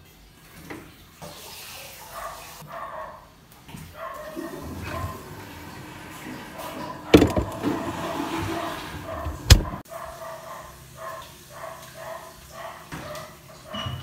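Kitchen clatter with two sharp, loud thuds about two and a half seconds apart, from a refrigerator door being opened and swung shut, then a lighter knock of a room door being opened near the end.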